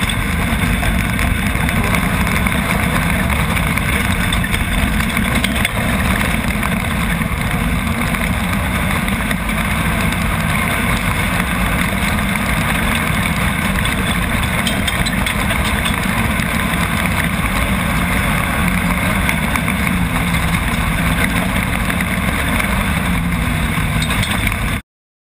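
Nissan VQ35 3.5-litre V6 of an off-road racing buggy running under way at fairly steady revs, heard from on board along with a constant rush of noise. It cuts off abruptly near the end.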